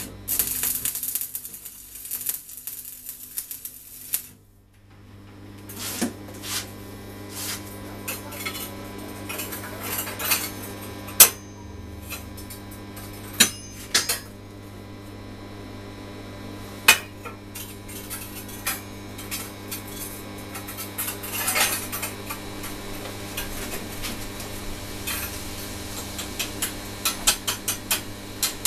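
A welding arc crackling and hissing for about four seconds as a tack weld is struck, then steel rods and rings clinking and clanking against a steel plate as the pieces are moved and set in place, over a steady low hum. The arc crackles again right at the end.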